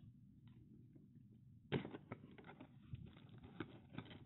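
Cardboard box being opened by hand: faint handling clicks, then a sudden sharp scrape about two seconds in as the box comes open, followed by cardboard flaps rustling and rubbing with small knocks.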